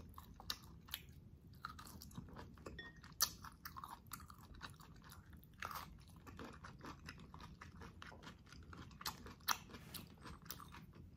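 Close-up chewing of boiled beef rib meat: soft, irregular wet smacks and mouth clicks, with a few louder ones.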